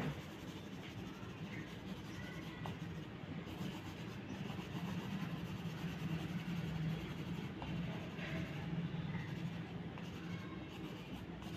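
Oil pastel crayon rubbed back and forth on drawing paper, a steady coloring sound.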